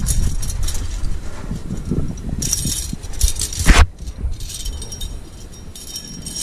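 Metal climbing hardware (carabiners and quickdraws racked on a harness) clinking and jingling as a climber moves up the rock, over a steady low rumble. A single sharp knock comes just under four seconds in.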